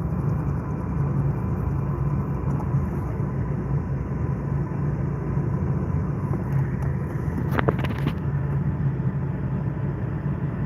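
A steady low mechanical rumble that gets louder right at the start, with a brief cluster of sharp clicks about three-quarters of the way through.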